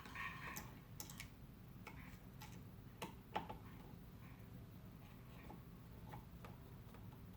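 Faint, scattered clicks and ticks of a small screwdriver and screws as the M.2 SSD's heat-sink plate is fastened down on the motherboard, with two sharper clicks about three seconds in.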